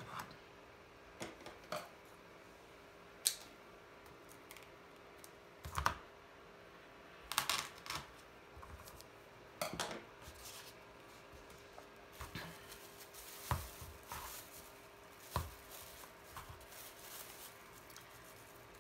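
Small handling sounds: scattered light taps and clicks of craft tools being moved on a cutting mat, and plastic wrap and a zip bag crinkling as a piece of gum paste is unwrapped.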